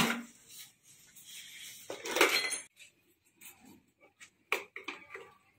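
Metal tools and parts clinking and knocking as they are handled and set down. There is a sharp knock at the start, a scraping rattle about two seconds in, and a few light clicks after that.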